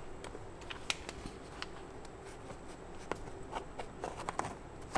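Knife cutting through a freshly baked basbousa semolina cake in its aluminium tin: faint dry scraping with a few light clicks scattered through.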